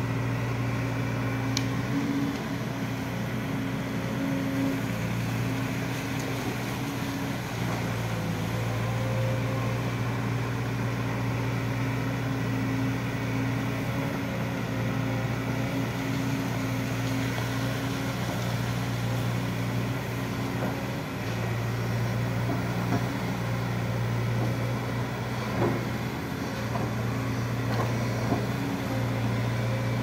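Volvo EC210 crawler excavator's diesel engine running steadily with a constant hum while the machine digs. A few short knocks come in near the end.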